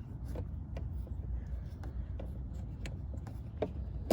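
Small scattered clicks and taps of a turn-signal bulb and its plastic socket being handled and fitted, over a steady low rumble. One sharper click comes near the end.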